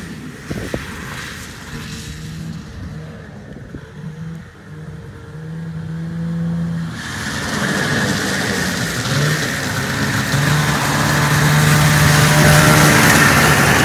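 1986 Arctic Cat El Tigre 6000 snowmobile's 530cc Suzuki two-stroke twin running under way, its note rising and falling with the throttle. Faint at first, it grows much louder from about halfway as the sled comes up close.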